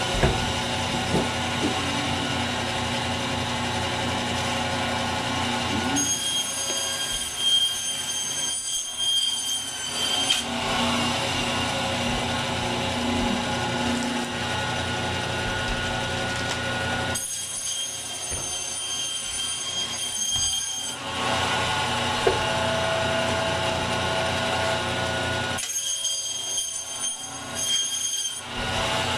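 Meat bandsaw running with a steady motor hum and a high blade whine as lamb rack is fed through the blade. In three stretches of a few seconds each, the sound changes character.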